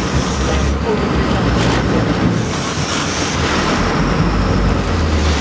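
Sportfishing boat under way: the engine's steady low rumble under an even hiss of wind and water, with a few brief higher-pitched whining patches.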